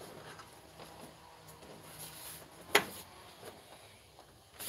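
Quiet handling sounds while working on a TV's plastic back cover: one sharp click a little over halfway through, then cloth rubbing against the microphone near the end.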